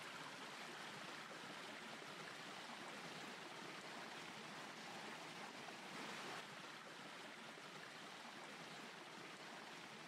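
A small stream running over rocks, a faint, steady rush of water.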